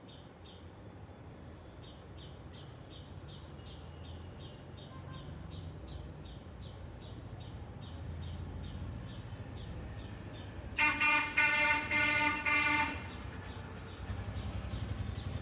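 Outdoor ambience of a low traffic rumble with a bird's high chirp repeating about three times a second. About eleven seconds in, a vehicle horn honks in several blasts for about two seconds.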